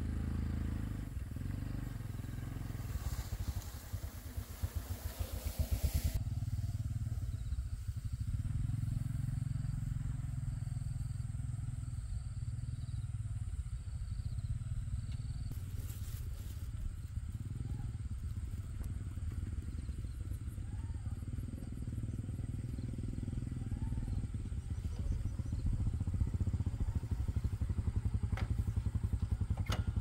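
A small engine running steadily with a fast low chugging, somewhat louder near the end. A hiss of noise rides over it a few seconds in.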